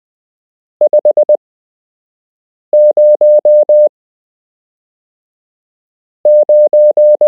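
Morse code figures sent as a keyed electronic beep tone, one character about every two seconds: the first is five quick dits (the figure 5) and the other two mix dahs and dits, each character five elements long. These are five-figure practice groups sent with wide gaps between characters for copying by ear.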